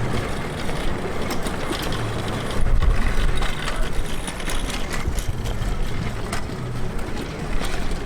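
Wind rumbling on the on-camera microphone while riding an electric unicycle along a paved path, with a stronger gust about two and a half seconds in.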